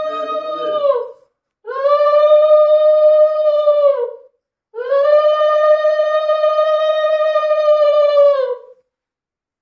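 Conch shell (shankha) blown three times: a short blast, then two long steady blasts, each sagging in pitch as the breath runs out, the customary conch call at a Hindu puja.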